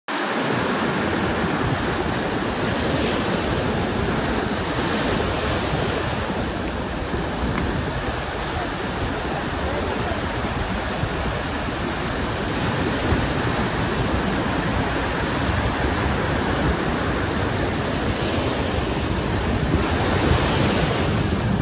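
Sea surf breaking and washing up the beach, a steady rush that swells a few times as waves come in, with wind rumbling on the microphone.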